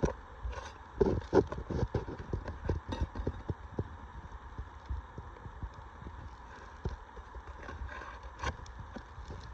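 Irregular taps, knocks and scrapes of hand tools against asphalt roof shingles as roofing nails are worked loose, busiest in the first few seconds and sparser after.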